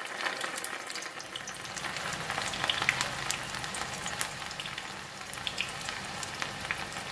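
Fresh ginger strips just added to hot oil, frying in a small pot: a steady sizzle with frequent small crackles and pops.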